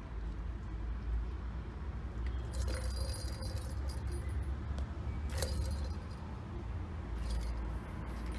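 Small jingling and rattling from a ball in an orange plastic tiered track cat toy, heard in a few short bursts, about two and a half, five and a half and seven seconds in, over a steady low rumble.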